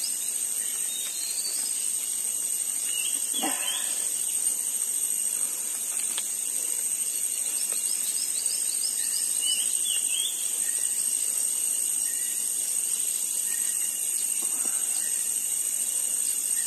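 Steady high-pitched chorus of insects. Over it come a few faint, brief handling noises while fish are worked free of a net.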